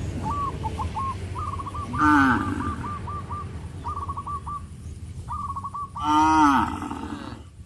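Cattle mooing twice, a short call about two seconds in and a longer, louder one about six seconds in, each falling in pitch.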